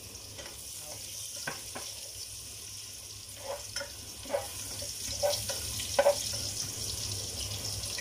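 Minced garlic sizzling in hot cooking oil in a pot, with a steady hiss. A cooking spoon stirring it knocks and scrapes against the pot a handful of times, loudest about six seconds in.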